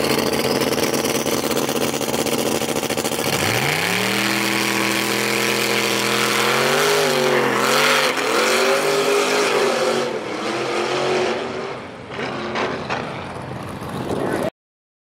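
Two drag-racing street cars running loudly at the starting line, then launching about three and a half seconds in, the engine note climbing sharply as they pull away down the track. The note wavers and fades, then cuts off abruptly near the end.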